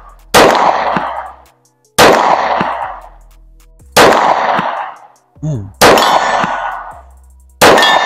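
Handgun fired five times, about one shot every two seconds, each shot followed by a long echoing tail.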